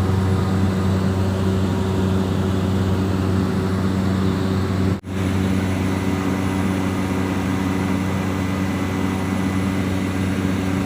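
Small propeller aircraft's engine and propeller droning steadily in cruise, heard from inside the cabin, with a brief dropout about halfway through.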